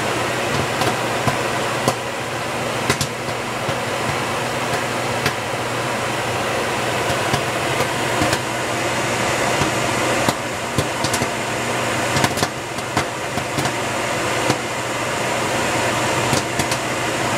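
Microwave oven running with a steady hum while popcorn kernels in a paper bag pop irregularly, sharp single pops every second or so.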